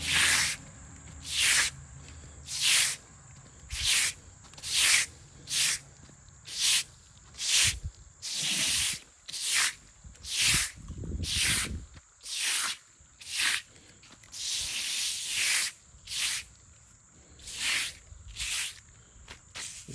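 Broom sweeping loose sand and grit together across a plastic pool liner, in short brisk strokes about one a second, with one longer stroke about three-quarters of the way through.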